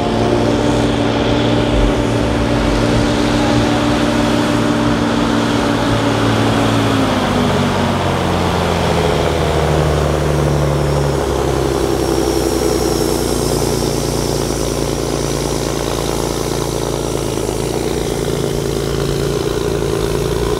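Diesel engine of a Volvo pulling truck running at full throttle under the heavy load of a weight-transfer sled. Its pitch falls about seven seconds in as the engine labours, then holds lower and steady.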